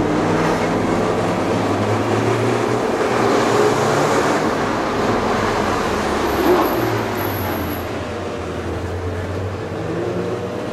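Sports car engine running at low revs while cruising in slow traffic, heard from inside the cabin over tyre and road noise. Its pitch drifts gently up and down, easing off slightly in the second half.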